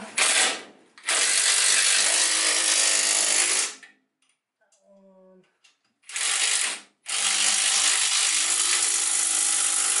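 Cordless impact wrench spinning nuts down onto bolts, run in four goes: a short burst, a run of a couple of seconds, another short burst, then a longer run of about three seconds.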